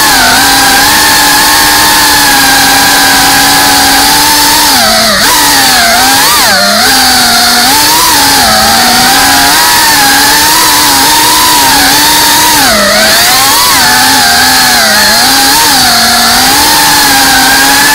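FPV freestyle quadcopter's motors and propellers whining, heard from the onboard camera. The pitch holds steady for a few seconds, then dips and rises again and again as the throttle is worked through the turns.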